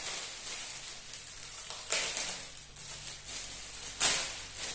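Clear plastic bag crinkling and rustling as it is handled and opened, with louder crinkles about two and four seconds in.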